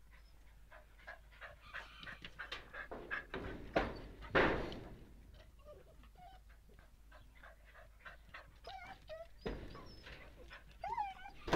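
Guinea pigs squeaking and chirping in many short, quick calls. Two loud rushing noises break in about four seconds in, and another comes near the end.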